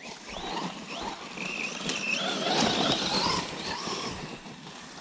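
Small RC car driving by, its motor whine wavering up and down in pitch as it speeds up and slows, loudest in the middle and fading toward the end.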